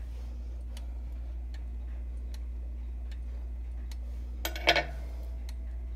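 Franz Hermle bim bam clock's brass pendulum movement ticking steadily, the ticks a little under a second apart. A brief, louder knock with a short ring comes about four and a half seconds in.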